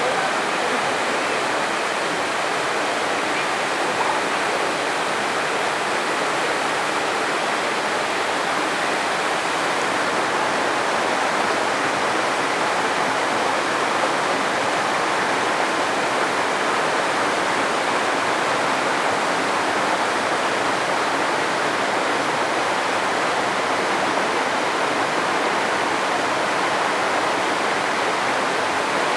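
Waterfall rushing steadily: a constant, loud hiss of falling water.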